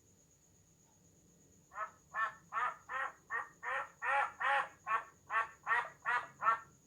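Duck quacking: after a pause of nearly two seconds, a quick run of about a dozen quacks, a little over two a second.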